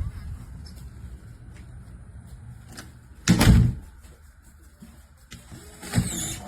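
Front door and electronic deadbolt being worked: a loud thud about three seconds in, then a brief motor whir as the bolt is driven, ending in a second thud near the end.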